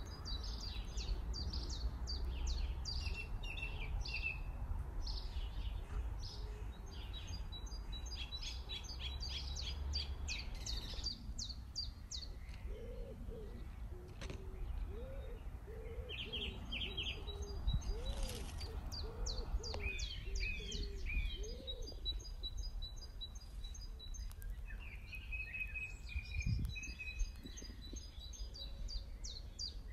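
Small birds chirping and trilling in quick repeated runs of high notes over a low steady outdoor rumble. Through the middle, a lower call repeats about a dozen times.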